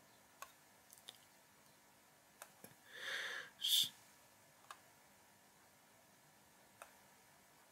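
Faint, scattered computer mouse clicks, about eight of them spread unevenly, with a short soft hissing sound about three seconds in.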